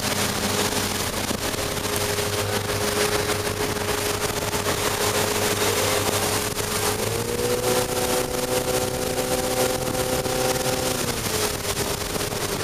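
Tow boat's engine running at speed over wind and rushing wake water; the engine note steps up about seven seconds in and drops back shortly before the end.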